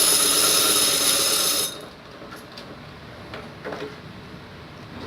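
Treadle sewing machine running at speed to wind thread onto the bobbin, a steady whir that cuts off suddenly about a second and a half in, followed by a few faint clicks of handling.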